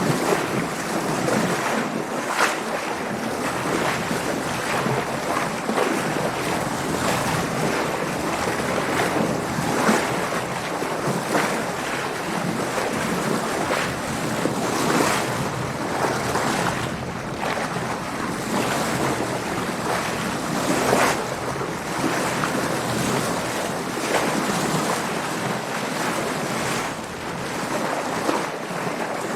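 Water rushing and splashing against a sailboat's hull as it moves through waves, with wind noise, in repeated brief surges over a steady rush.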